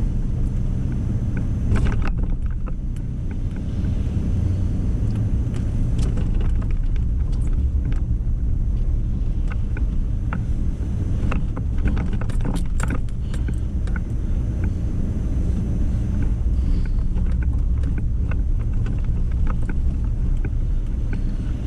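Pickup truck driving slowly on snow- and slush-covered roads, with a steady low rumble of engine and tyres. A few short knocks come and go, about 2 seconds in and again around the middle.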